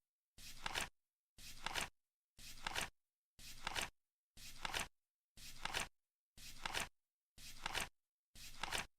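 Flip clock ticking once a second, nine times in a row. Each tick is a short rustle that swells into a sharp click as the flap drops.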